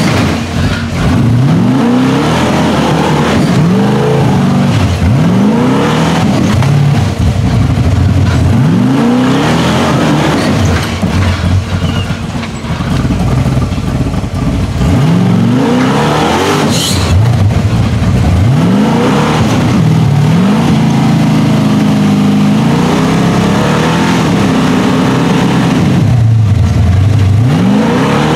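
Big-block V8 engine of a rock-crawling buggy on Rockwell axles, revved in short, repeated bursts under load as it climbs a rock ledge. The pitch rises and falls back over and over, every second or two. There is one brief sharp noise about two-thirds of the way through.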